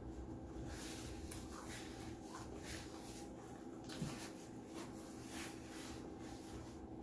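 Quiet room with a steady low hum, a few faint brief rustles and scrapes, and one soft low sound about four seconds in.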